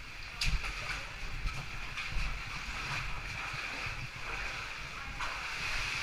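Steady rush of a cave stream, with scrapes and knocks of a helmet-mounted GoPro brushing rock as a caver squeezes through a narrow passage; a sharp knock about half a second in.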